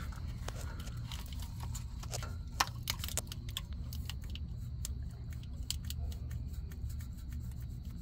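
Light clicks and taps of a plastic wiring plug on a GM neutral safety switch being worked by hand, the plug still held fast by its unheated adhesive, with one sharper click about two and a half seconds in. Under it runs a low steady rumble of wind on the microphone.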